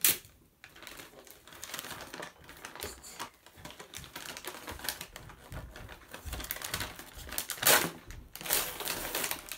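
Shiny gift-wrapping paper being torn and crinkled off a box by hand: an irregular crackling and rustling, with one louder tear about three quarters of the way through.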